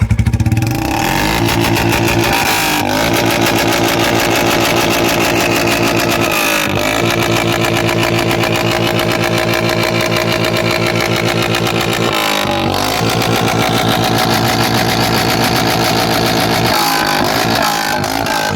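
2023 Royal Enfield Classic 350 (Bullet) single-cylinder engine idling through a long-bottle Punjab aftermarket silencer, with a steady beat and brief throttle blips about four times.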